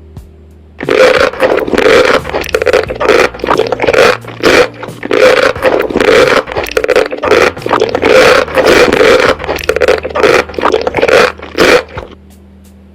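Loud, irregular crunching and crackling of food being chewed close to the microphone, starting about a second in and stopping shortly before the end, over faint background music.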